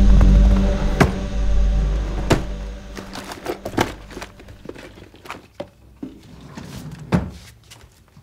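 A low, tense music drone with heavy thuds fades out over the first three seconds. Then come quiet rattles and clicks of hands rummaging through a wooden dresser drawer, and a sharp thunk about seven seconds in.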